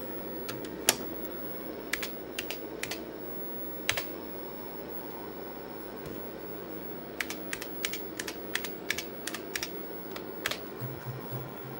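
IBM Model F keyboard's buckling-spring keys clicking as keys are typed: a few scattered keystrokes at first, then a quicker run of about a dozen past the middle, over a steady low hum.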